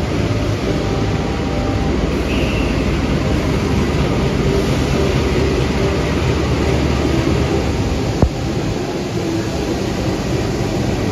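A KAI CC 206 diesel-electric locomotive hauls passenger coaches slowly through a station: steady diesel engine rumble mixed with rolling wheel and rail noise. A single sharp click sounds about eight seconds in.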